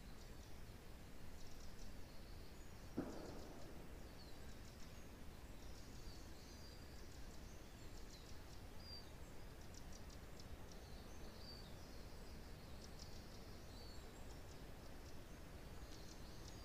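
Small forest birds chirping and twittering in short, high calls over a faint, steady low wind rush. About three seconds in there is a single short knock.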